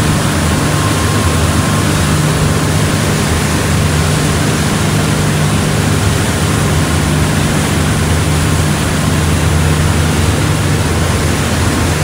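Leopard catamaran under way: the steady drone of its diesel engines under the loud rush of the churning wake water.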